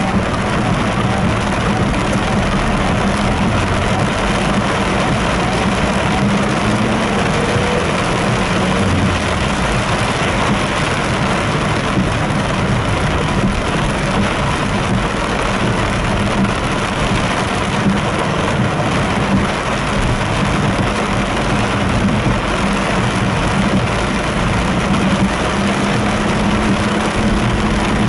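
Heavy rain beating on a car's roof and windscreen, heard from inside the cabin, with the car's engine running underneath as a steady low hum.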